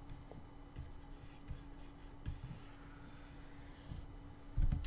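Faint scratching and soft knocks of hands working a computer input device on a desk, with a heavier thump near the end, over a steady low electrical hum.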